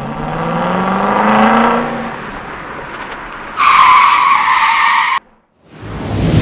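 Car engine revving, rising in pitch, then a tire squeal of about a second and a half that cuts off suddenly.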